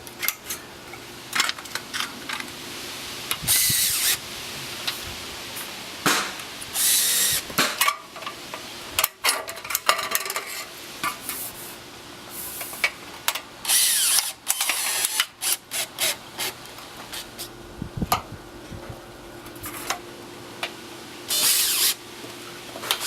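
Cordless drill/driver driving screws through aluminium flashing in several short bursts, with taps and knocks of handling between them.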